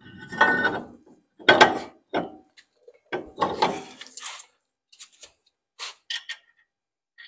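Drilled cast-iron brake rotor (a C6 Corvette Z51 rotor) being slid onto the hub over the wheel studs, with several scrapes and clunks of metal on metal as it seats. A few lighter clicks follow near the end.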